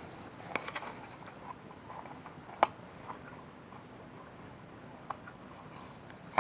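Scattered clicks and taps of a plastic toy container being handled and pried at while its lid resists opening. There is a small cluster of clicks about half a second in and one sharper, louder click past the middle.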